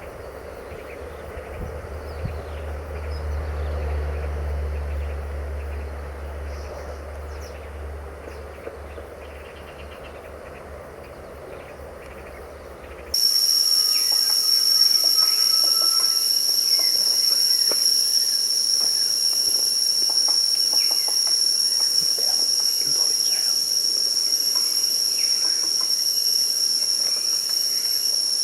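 A low, steady rumble, then an abrupt change about thirteen seconds in to a loud, unbroken high-pitched insect drone, with occasional short bird chirps and clicks over it.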